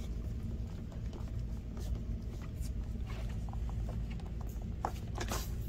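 Fingers pressing and working a rubber cover plate's tabs into holes in a scooter's plastic floorboard, giving faint rubbing and a few small clicks, over a steady low hum.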